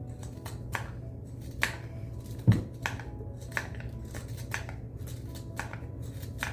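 Hand tools working wood for a silver ash ladle: irregular sharp clicks and knocks of cuts, with one heavier thump about two and a half seconds in.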